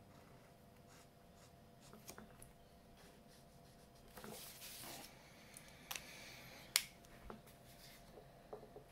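Faint scratching of a felt-tip marker stroking over paper as it colours in, with soft paper rustling about halfway through and a single sharp click a little later.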